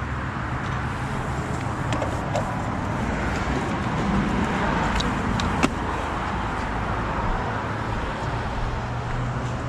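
Honda Silver Wing scooter's engine running steadily with a low drone, with a few faint clicks.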